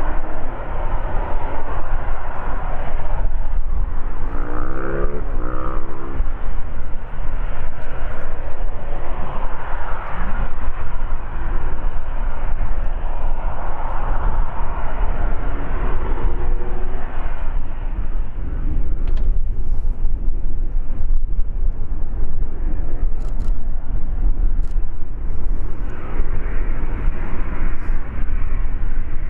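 Boeing 737-800's CFM56 turbofan engines running at taxi power, a steady roar and rumble as the jet rolls slowly along the taxiway.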